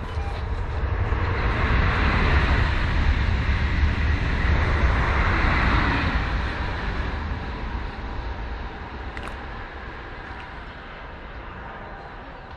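A train passing by: a noisy rumble and hiss that swells over the first couple of seconds, stays loud for a few seconds, then slowly fades away.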